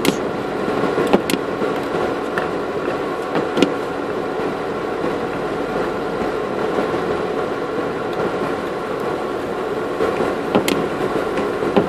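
Four-by-four's engine running steadily, heard from inside the cabin as it crawls along a muddy track, with a few sharp knocks.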